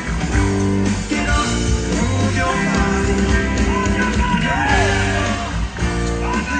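Live rock band playing, with electric guitar, keyboards and drums, and a man singing into the microphone, heard from within the audience.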